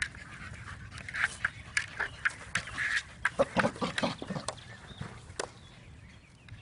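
A dog panting while it mouths and shoves a hard hollow plastic, water-weighted tug ball, with many short clicks and knocks of teeth on the plastic. The clicks come thickest in the first two-thirds and thin out near the end.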